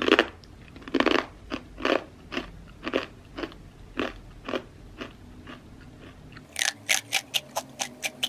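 Crisp crunching of baked whole-wheat protein chips being bitten and chewed close to the microphone, about two crunches a second. About six and a half seconds in, a quicker run of sharper, lighter snaps follows.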